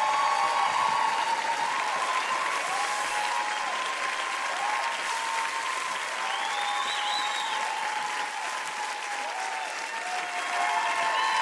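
Studio audience applauding loudly, with voices cheering and whooping over the clapping.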